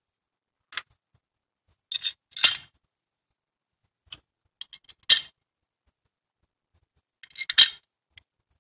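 Steel bolts clinking against an aluminium engine bracket as it is handled and the bolts are fitted into its holes. Sharp metallic clinks come in irregular clusters, the loudest about five seconds in and again near the end.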